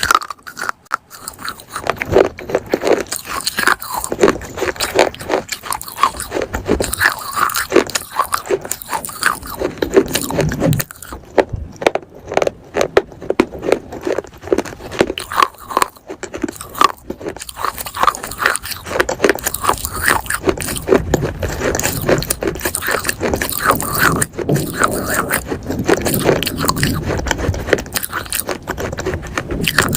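Close-miked biting and chewing of hard, dry pieces of baked clay pot: dense, irregular crunching and gritty scraping throughout.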